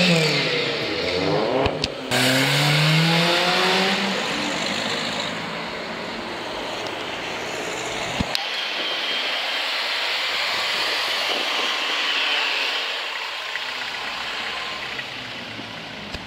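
A car engine revving hard as the car accelerates away, the pitch climbing, dropping briefly about two seconds in as it shifts gear, then climbing again. After about four seconds it gives way to a steady, fading wash of traffic noise.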